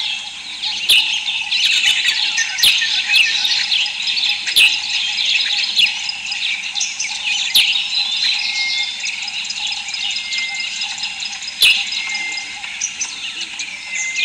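A dense chorus of many small birds chirping and twittering, with a short whistled note repeating every second or so in the second half and a few sharp clicks now and then.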